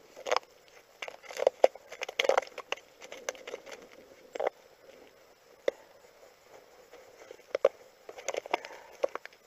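Boots fitted with strap-on ice cleats crunching and scraping on lake ice in irregular steps, with some sharp clicks.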